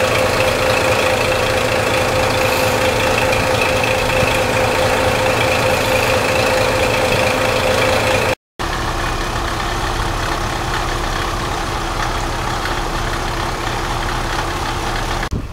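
JNR KiHa 65 diesel railcar idling at a platform, its underfloor DML30HSD diesel engine running steadily with a constant whine over it. About eight seconds in the sound cuts abruptly to a KiHa 58 car's DMH17H diesel engines idling, a little quieter and lower-pitched.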